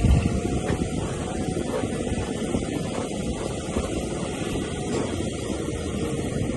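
Heavy-machinery engine running steadily, a continuous low rumble with a few faint clicks.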